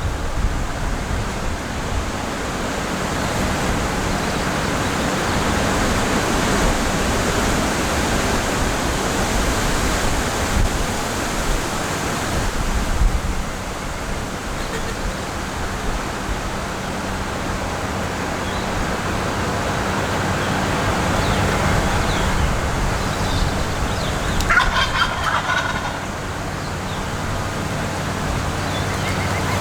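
A wild turkey gobbler gobbles once, a short rattling call about 25 seconds in, over a steady rush of wind on the microphone.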